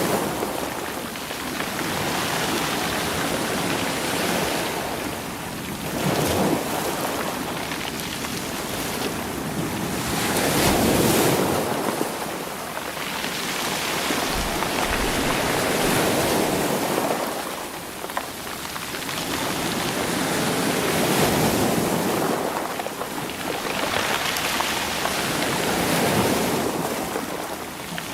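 Sea waves washing over a rocky shore, with rocks rolling and clattering in the surf; the wash surges and ebbs about every five seconds.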